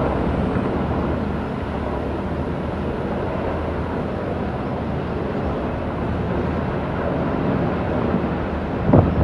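Military helicopters flying over in formation: a steady rumble of rotors and turbine engines. A brief thump comes near the end.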